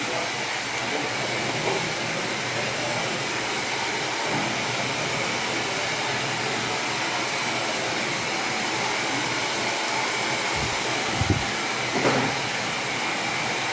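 Small electric blower motor running steadily: an even rushing noise with a faint high whine.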